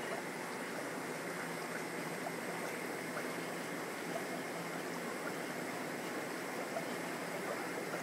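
Steady bubbling, rushing water noise from the air line aerating a bucket of water.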